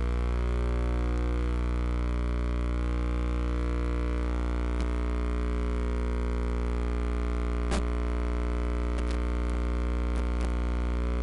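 A steady low hum with many overtones, unchanging in pitch, with a few faint clicks.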